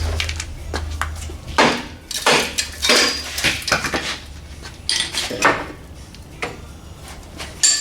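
Irregular metal clanks, knocks and scrapes of tools against rusty U-bolt and axle-perch hardware on a truck's rear axle, over a steady low hum that stops near the end.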